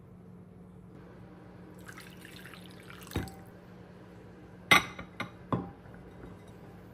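Nested glass bowls knocking together as a bowl of partly melted chocolate is stirred in a hot-water bath: light scraping, a knock about three seconds in, then three sharp ringing glass clinks within a second, the first the loudest.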